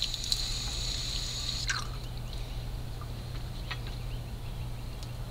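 Water from a garden hose splashing into a plastic bucket, dying down about two seconds in. A short falling chirp sounds at about the same moment, and a low hum runs under it all.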